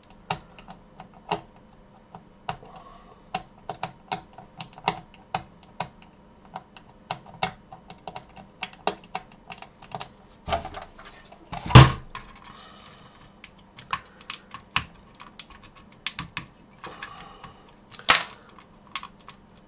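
Irregular clicks and taps of an Atari 1200XL circuit board and its plastic case being handled and worked loose, with one louder knock about twelve seconds in.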